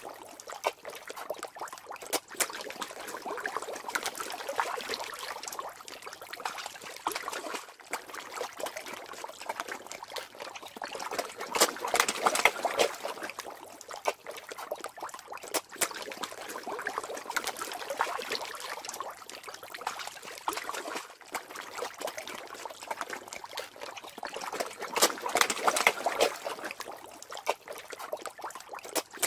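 Water trickling and bubbling in an uneven stream, with scattered small pops and swelling louder a couple of times.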